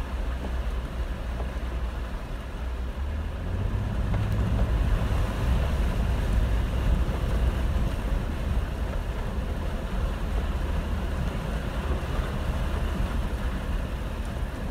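Jeep Wrangler Unlimited (JKU) driving slowly through shallow floodwater, heard from inside the cabin: a steady low engine and drivetrain rumble under a hiss of water washing off the tyres, growing a little louder about four seconds in.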